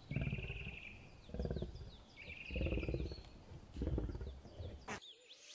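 Male African lion giving a series of about four short, deep roars, a little over a second apart. The sound cuts off suddenly about five seconds in.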